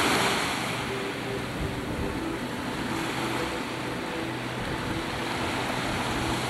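Wind and choppy waves, with a boat's engine running steadily underneath as a low hum.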